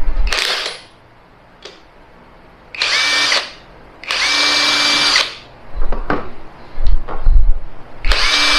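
Brushless cordless impact wrench free-spinning with no load, triggered four times in short runs. Each run spins up quickly to a steady whine, and the third run is the longest at about a second. Between runs there are a few low knocks from the tool being handled.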